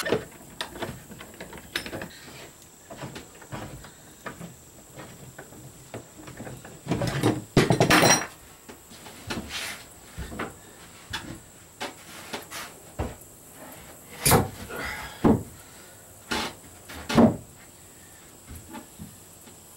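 Irregular knocks, clunks and scrapes of plywood boards and tools being handled and shifted on a plywood boat deck, with a few louder thumps in the middle and later on.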